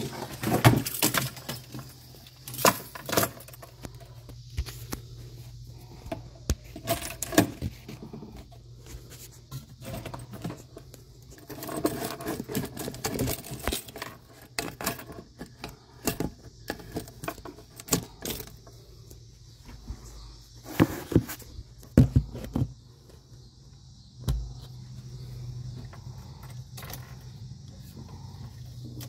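Irregular metallic clinks, clicks and knocks, with a jingle like keys, from a cam lock hose coupling with hose clamps and a dangling ring pin being handled and fitted together.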